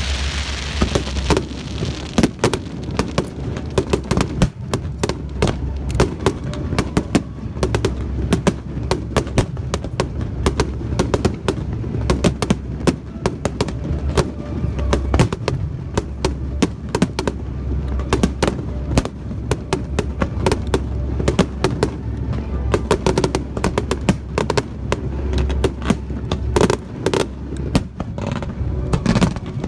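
Aerial fireworks shells bursting in rapid, overlapping succession, a dense barrage of sharp bangs over a continuous low rumble, as in a fireworks finale.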